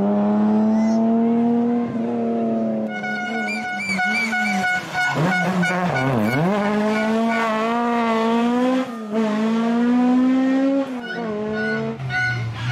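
Classic rally car engines revving hard through a tight bend, including a Mk2 Ford Escort. The pitch climbs through the gears, then dips sharply about six seconds in as the driver lifts off and downshifts, before climbing again. A steady high tone sits over the engines from about three seconds in.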